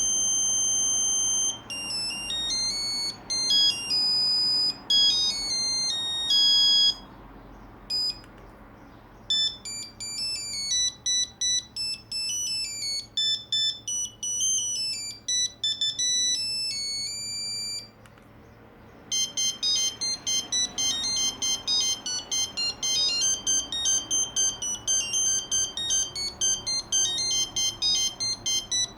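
Nokia 2100 mobile phone playing monophonic beeping ringtone melodies through its small speaker, one tune after another. One tune ends about seven seconds in, a second runs from about nine to eighteen seconds, and a fast, repeating beep pattern follows to the end.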